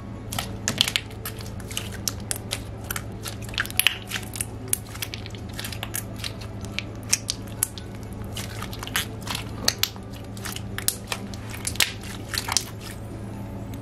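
Thick, glossy slime being squeezed and poked by hand, giving irregular sharp pops and clicks as air bubbles in it burst, over a steady low hum.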